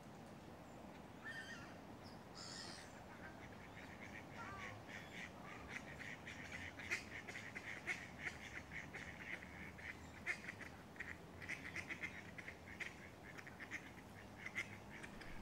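Faint bird calls: a couple of short higher calls near the start, then from about five seconds in a long, rapid run of quack-like calls.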